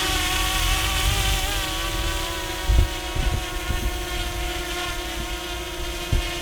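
Brushless motors and propellers of a Matavish 3 quadcopter drone whirring steadily in flight, a droning whine with a slight waver in pitch. Low thumps of wind buffet the microphone a few times.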